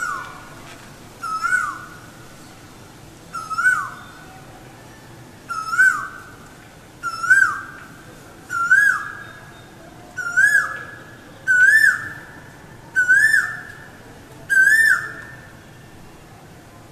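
Male Asian koel singing: a series of about ten loud two-note 'ko-el' calls that come faster and climb in pitch as the series builds, ending about fifteen seconds in.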